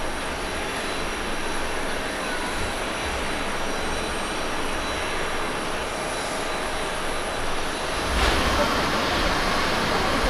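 Airbus A350-900's Rolls-Royce Trent XWB engines at taxi idle, a steady distant jet rumble with a faint whine. About eight seconds in it gives way abruptly to the louder jet noise of a Boeing 737-800 on final approach.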